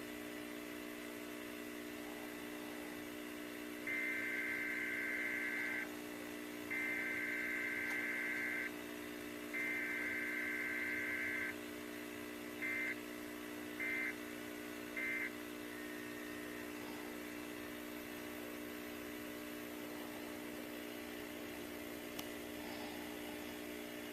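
Emergency Alert System SAME data bursts: three digital header bursts of about two seconds each, starting about four seconds in, then three short end-of-message bursts, over a steady low hum.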